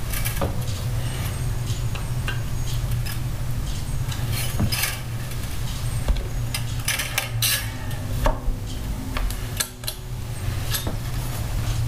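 Slack steel strings and metal hardware on a Fender Stratocaster clinking and rattling as the neck is lifted off the body and handled. The clinks are short and irregular and come every second or so.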